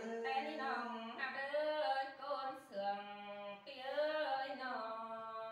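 A single voice singing unaccompanied in the khắp folk style of the Tai people, holding long notes that bend and waver, in phrases with short breaks between them.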